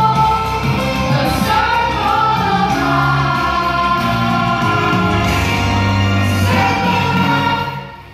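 Choir singing over music with a steady bass line. The music dips briefly just before the end.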